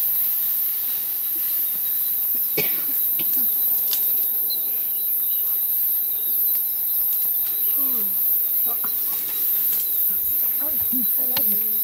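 Steady high-pitched chorus of insects, with a few sharp clicks about a third of the way in.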